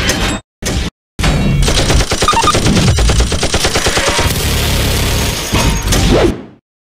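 Machine-gun fire sound effect. A long burst of rapid automatic fire starts just over a second in, runs for about five seconds and fades out, after two short hits at the start.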